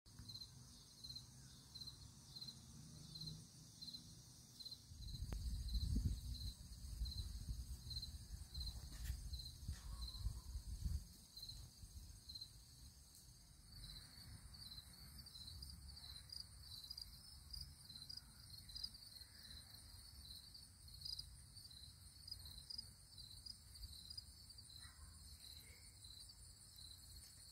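Faint outdoor insect chirping: a high chirp repeats evenly at about two a second, and a second, denser chirping joins about halfway through. A low rumble rises and falls between about five and eleven seconds in.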